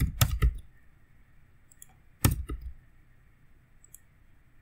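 Computer keyboard keystrokes during code editing: a quick run of about four key presses at the start, then one loud tap a little over two seconds in, followed by a couple of lighter ones.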